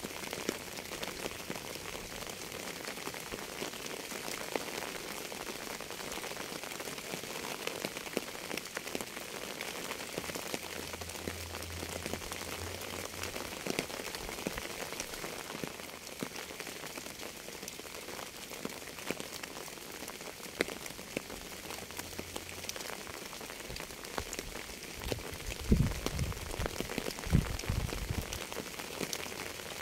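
Steady rain falling on a surface, with individual drops ticking through it and two low thumps about a second and a half apart near the end.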